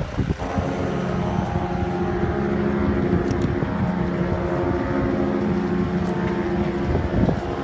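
An engine running steadily at one unchanging pitch.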